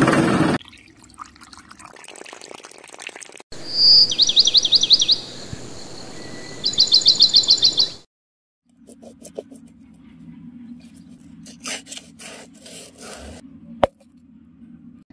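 A bird chirping in two quick trills of repeated, high, downward-sweeping notes, the loudest sound here. Afterwards a low steady hum with scattered light clicks and one sharp click near the end.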